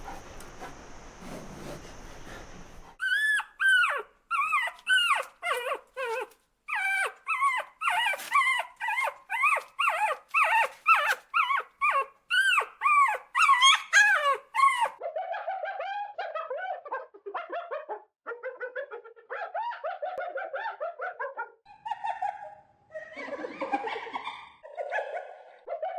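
Dog whimpering and yipping: after a few seconds of hiss, a fast run of short, high-pitched rising-and-falling whines, about two a second. Lower, rougher calls follow from about halfway through.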